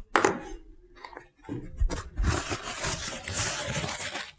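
Soft rustling and rubbing noise from hands moving near the microphone. It starts about one and a half seconds in, after a brief quiet spell.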